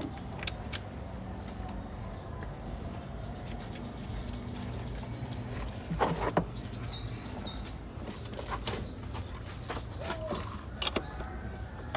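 Small birds chirping in quick, repeated high notes, in two spells, over a steady low hum. A few sharp clicks and knocks come about halfway through and again later.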